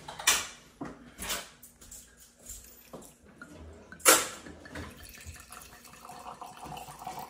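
Red wine being poured from a bottle into a wine glass, with the liquid running steadily into the glass in the last couple of seconds. A few sharp glass and dish clinks come before it, the loudest near the start and about four seconds in.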